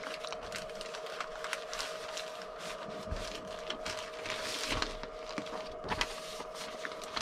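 Paper manuals and kit contents being handled and packed into a cardboard kit box: a run of rustling and small knocks and taps. A faint steady hum runs underneath.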